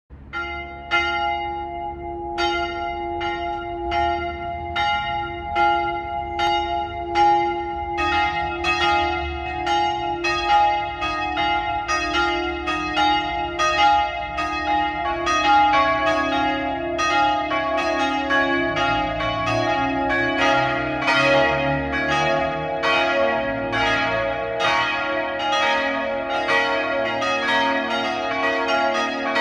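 Church bells ringing. A single bell strikes steadily at first, a little over once a second. More bells join about eight seconds in, and again around fifteen seconds, building into a full peal with deeper bells humming underneath.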